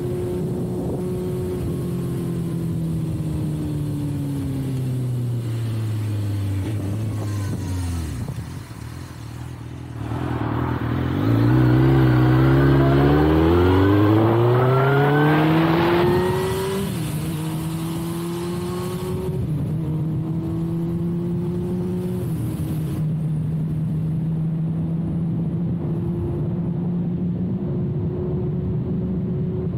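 2006 Suzuki GSX-R1000's inline-four through a full carbon/titanium Yoshimura exhaust. The revs fall away over the first several seconds, then it pulls hard and loud from about ten seconds in with the revs climbing steeply. Three quick upshifts follow, each a drop in pitch, and it settles into a steady cruise.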